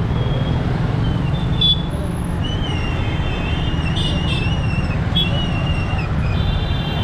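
Street traffic noise: a steady low rumble, with faint high wavering tones coming and going over it.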